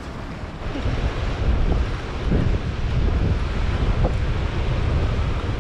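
Wind buffeting the microphone, with surf washing in the shallows.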